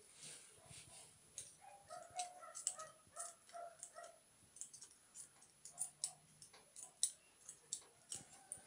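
Surgical scissors snipping along a metal ear-cropping clamp on a puppy's ear: a faint, irregular run of sharp clicks, with a string of short high squeaks between about two and four seconds in.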